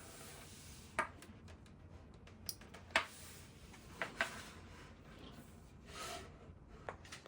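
Light handling noises: a few small clicks and taps, two of them close together just after the middle, and a soft rubbing sound near the end.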